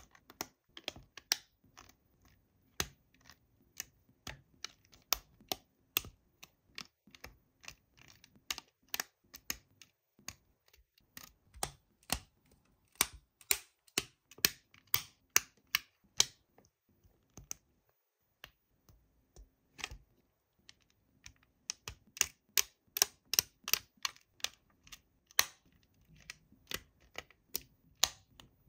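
LEGO bricks and plates being pressed and snapped together by hand: a string of sharp plastic clicks and taps, several a second, with a short pause a little past the middle.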